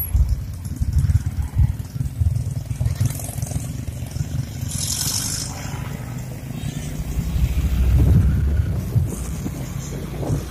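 Motorcycle riding along: low engine and road rumble, swelling about eight seconds in, with a brief hiss about five seconds in.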